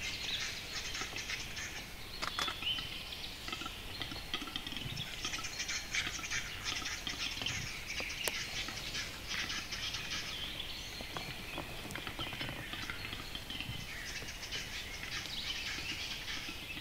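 Western capercaillie males displaying on the lek, a dense run of dry clicks and scratchy, scraping song phrases, mixed with the chirps of small forest birds.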